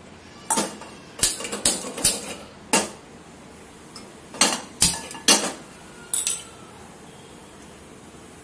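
Sharp metallic clicks and clinks at a gas stove, about a dozen in two bursts with a pause between, as a spark gas lighter is clicked at the burner under a non-stick pan.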